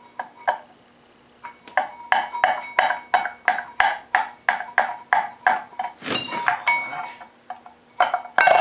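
Metal-on-metal taps on a Cummins diesel's steel flywheel as it is worked loose from the crankshaft. A run of about fifteen sharp, ringing taps comes at about three a second, then a few scattered knocks. Near the end a louder metallic clatter starts.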